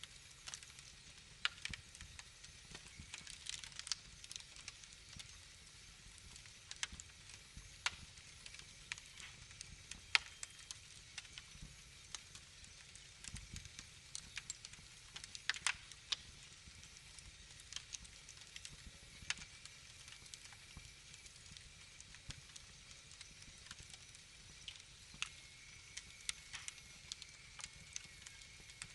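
Fireplace fire crackling, with irregular sharp pops over a soft hiss and low rumble.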